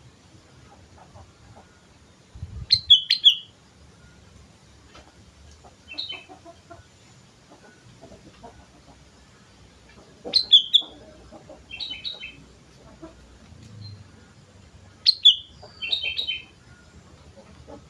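Sooty-headed bulbul (kutilang) singing: short, liquid whistled phrases in three main loud bursts several seconds apart, each followed a second or so later by a softer phrase.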